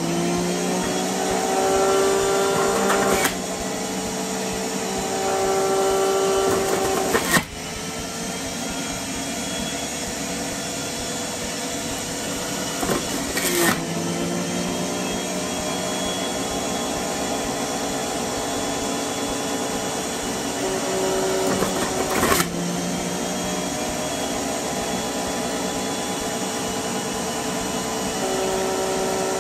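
NutriBullet centrifugal juicer motor spinning up and running steadily while ginger and turmeric root are pressed into it. Its pitch sags and recovers as the load changes, with four sharp knocks as hard pieces catch. It is running on its low speed, which should have been high.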